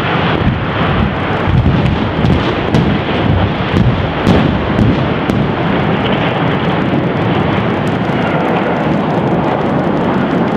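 Explosive demolition of a steel arch bridge: a long, loud rumble as the spans and debris come down and the blast echoes roll on, with scattered sharp cracks during the first five seconds.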